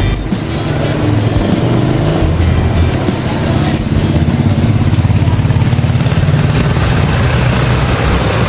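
A vehicle engine running close by with a steady low rumble.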